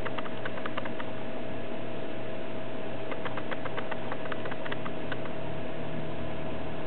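A mouse's plastic exercise ball rolling on a kitchen floor, giving quick light clicks and rattles in two spells, near the start and again in the middle, over a steady hiss and a constant hum.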